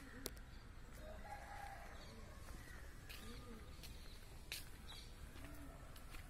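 Faint bird cooing: short, low rising-and-falling calls repeated every second or so, with a couple of sharp clicks.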